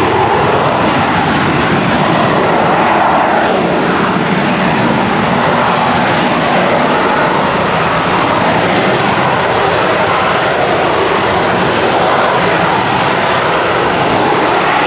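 AV-8B Harrier II's Rolls-Royce Pegasus vectored-thrust turbofan holding the jet in a hover: a loud, steady jet noise that stays even throughout.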